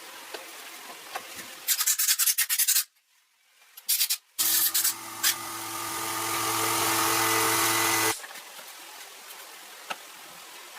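Sanding, a burst of quick rasping strokes, then after a short break an electric power tool running steadily with a hum and hiss for about four seconds before cutting off abruptly.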